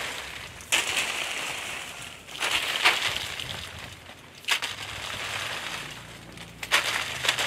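Dry corn leaves and stalks rustling and crunching in four surges about two seconds apart, each starting sharply and fading.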